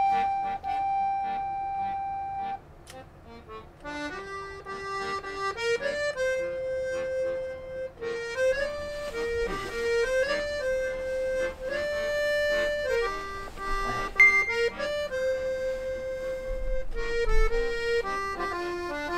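Background music: a slow melody of long held notes that step from pitch to pitch, with a brief pause about three seconds in.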